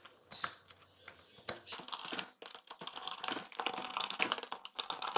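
Faint irregular clicks and crinkling of screws being driven in by hand to clamp a new rubber fridge door gasket, the plastic and rubber creaking under the pressing. Sparse at first, the clicks come thick and fast from about a second and a half in.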